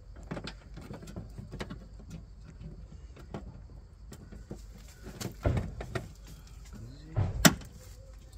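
Plastic clicks and knocks as a replacement front indicator unit is handled and pressed into the Porsche's front bumper opening, ending in one sharp snap about seven and a half seconds in as it clips into place.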